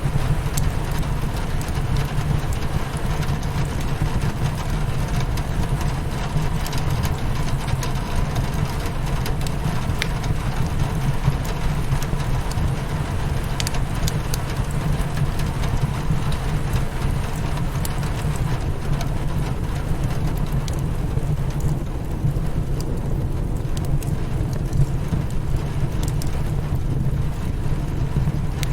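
Rain pattering steadily against a windowpane with a deep, even rumble underneath, mixed with the scattered crackles and pops of a wood fire in a fireplace.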